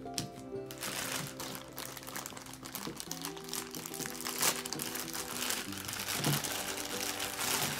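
Clear plastic bags crinkling as they are handled and pulled open, irregular crackles over background music with held notes.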